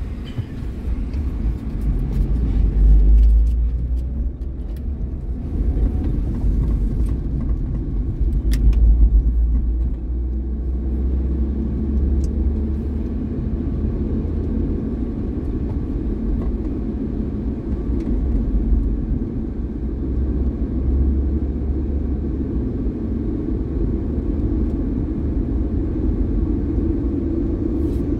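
Steady engine and road noise of a moving car on a highway, heard from the car, with a deep rumble that swells twice in the first ten seconds.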